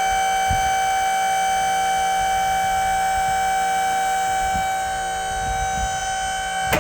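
Warning alarm on a CBI 5800 grinder sounding one loud, steady, high tone, warning that part of the machine is moving, then cutting off abruptly near the end.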